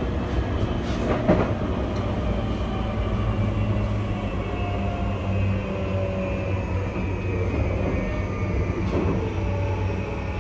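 Inside a JR E235-1000 series electric train running on rails: a steady low hum and wheel rumble, with faint whining tones from the Mitsubishi full-SiC VVVF inverter and traction motors, as the train nears a station. A single knock about a second in.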